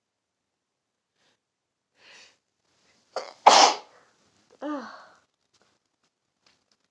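A person sneezing: a quick breath in, a short catch, then one loud sneeze about three and a half seconds in, followed by a brief voiced sound falling in pitch. Part of a sneezing fit.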